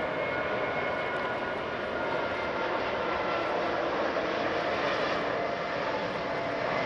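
A Qantas Airbus A380-800's four Rolls-Royce Trent 900 turbofan engines on final approach with landing gear down, a steady jet rumble with a faint high whine that fades about three seconds in.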